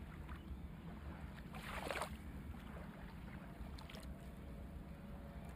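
Faint steady low rumble of room noise, with a brief soft rustle of hands handling a small cold-porcelain cookie about two seconds in.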